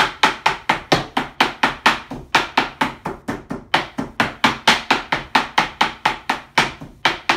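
Kitchen knife chopping raw fish fillet on a plastic cutting board, mincing it fine: a fast, even run of sharp knocks, about five a second.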